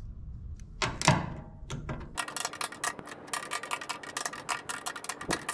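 A ratchet wrench clicking rapidly as bolts are run down, starting about two seconds in after a single knock.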